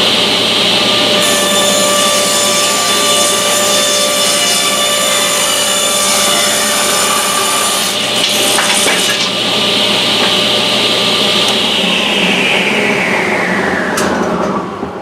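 Table saw ripping a mahogany board: harsh blade-cutting noise over the motor's steady whine until about nine seconds in. The saw is then switched off and the blade spins down, its whine falling in pitch over the last few seconds.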